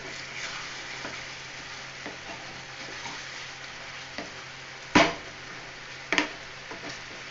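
Thick chicken curry sizzling and bubbling in a non-stick pan on a lit gas burner as a spatula stirs it, with scraping and a few sharp knocks of the spatula against the pan. The loudest knock comes about five seconds in, and another about a second later.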